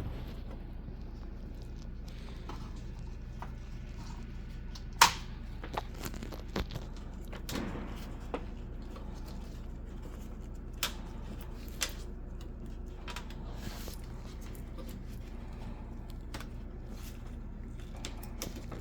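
Steady low hum with scattered sharp clicks and knocks, the loudest about five seconds in and a cluster of lighter ones over the next seven seconds.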